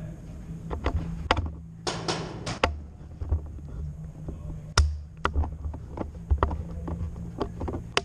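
Scattered sharp clicks and knocks, with a short hiss about two seconds in, picked up by a camera mounted on a Tippmann paintball pistol as it is carried and handled in play.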